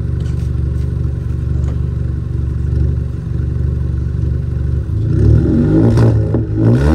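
Kia K5's engine and exhaust idling steadily, then revved in a few quick blips from about five seconds in.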